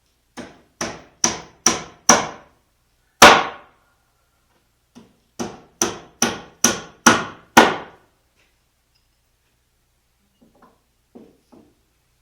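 Hammer driving nails into wooden boards: five blows about two a second, growing harder, then one heavier blow. After a short pause comes a second run of six blows, also growing harder. A few faint knocks follow near the end.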